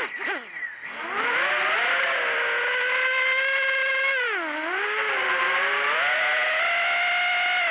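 Brushless motors of an Eachine Wizard X220 racing quadcopter whining, as picked up by its onboard camera. The pitch drops sharply at the start as the throttle is pulled back and climbs back up about a second in. It dips again about four seconds in, then holds a steady whine.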